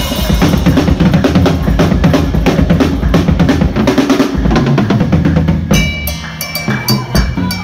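Acoustic drum kit played fast and hard: dense, rapid strokes on snare, toms and bass drum. About six seconds in the playing thins out to lighter, evenly spaced sharp strikes under a ringing cymbal.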